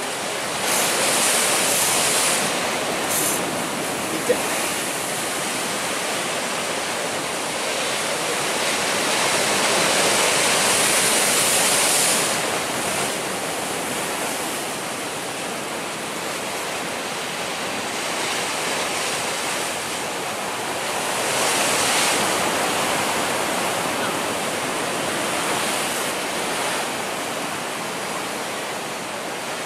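Sea surf breaking and washing over a rocky shore, a continuous rush that swells louder twice as bigger waves come in, with one sharp click about four seconds in.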